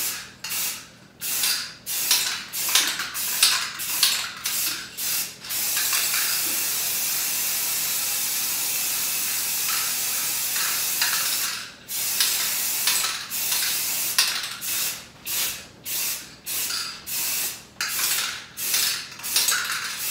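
Aerosol spray can of Rust-Oleum frosted-glass coating spraying a coat onto glass door panes. It gives a run of short hisses about two a second, then one long steady hiss of about six seconds, then more short hisses.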